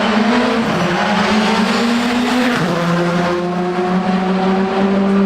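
Rally car engine pulling hard, its pitch climbing, then dropping sharply with an upshift about two and a half seconds in and climbing again.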